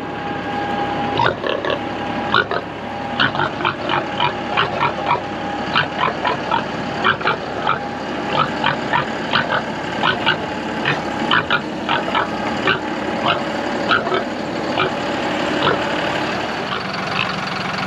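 A pig grunting and snuffling in short, quick sounds, about two or three a second, over a steady engine hum.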